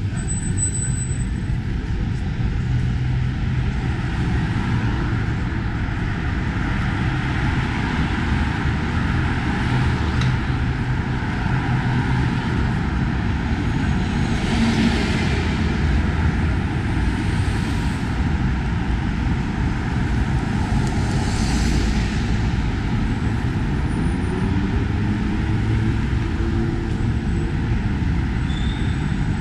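City street traffic: a steady hum of cars and buses going by, with two louder hissing swells about halfway through and a little later as vehicles pass close.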